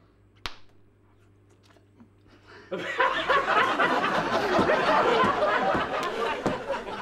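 A bubble-gum bubble pops with a single sharp snap about half a second in. About two seconds later, loud laughter breaks out and goes on.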